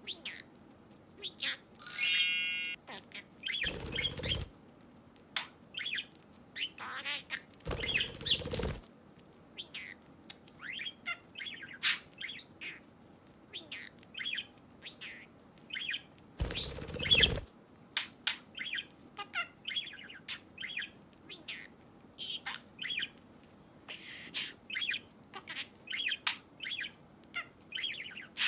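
Budgerigar chirping and chattering: a steady run of short, quick chirps with one loud, long call about two seconds in. Three bursts of rustling noise, about a second each, break in near four, eight and seventeen seconds.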